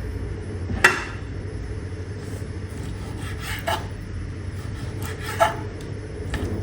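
Kitchen knife cutting meat into strips on a chopping board: scraping strokes with a few sharp knocks of the blade on the board, the clearest about a second in, near the middle and later on, over a steady low hum.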